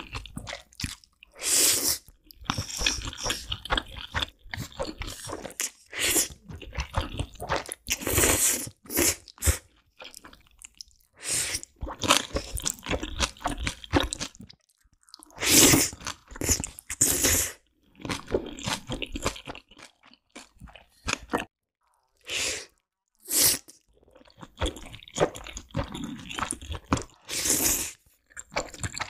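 Black bean noodles being eaten: several loud slurps as mouthfuls are drawn in, with wet chewing in between.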